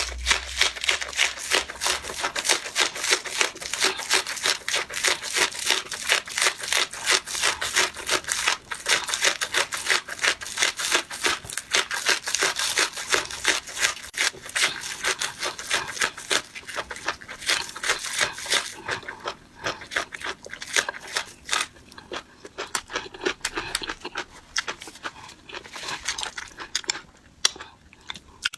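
Close-miked wet, sticky clicking of sauce-coated noodles, many small clicks a second. The clicks thin out about two-thirds of the way through.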